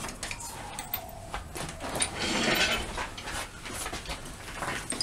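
Small wood lathe spinning down, its whine falling steadily in pitch over the first second and a half, with scattered clicks and knocks of the chuck and tools being handled.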